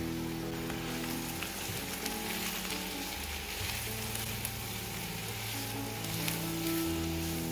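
Sliced brown mushrooms and chopped onion sizzling in hot oil in a nonstick frying pan, with a few scrapes and taps of a black spatula as they are stirred. Soft background music with held notes plays underneath.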